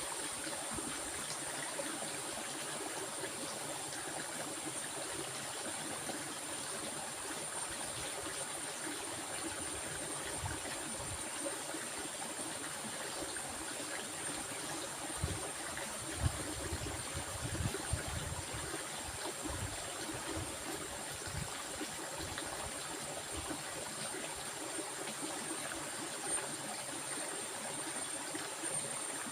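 Stream water flowing and trickling steadily, with a thin high-pitched tone held steady above it. A few soft low bumps come about halfway through.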